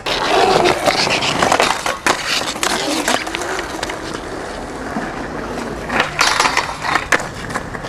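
Skateboard wheels rolling hard over brick paving, with steady rough rumble and clicking over the joints. About six seconds in come several sharp clacks as the board pops and hits a rail.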